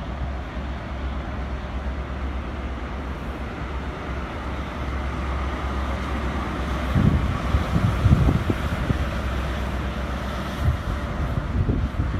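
A Network Rail New Measurement Train, an InterCity 125 with Class 43 diesel power cars, running slowly through a station: a steady low engine hum and running noise. Gusts of wind rumble on the microphone from about seven seconds in and again near the end.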